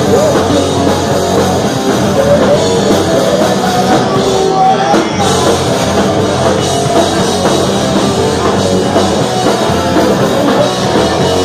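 Loud live rock band playing: electric guitars, bass and drum kit pounding on without a break, close up and dense.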